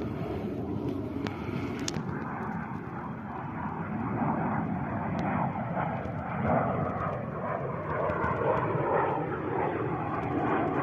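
A military aircraft flying overhead, its engine a continuous drone.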